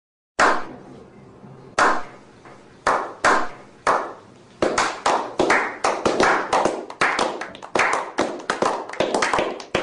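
Hands clapping: a few separate claps about a second apart, then quicker, denser clapping from about four and a half seconds in.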